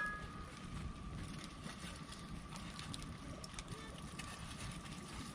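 Wood campfire crackling faintly, with scattered small pops over a steady low rumble and a faint steady high tone.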